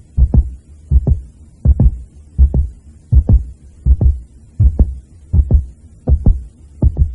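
A deep double thump, like a heartbeat, repeating steadily about four times every three seconds.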